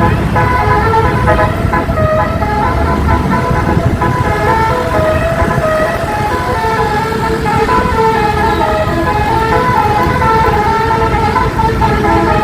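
A bus's 12-note basuri (telolet) air horn playing a melody, several horn tones sounding together and stepping from note to note a few times a second, over a low rumble.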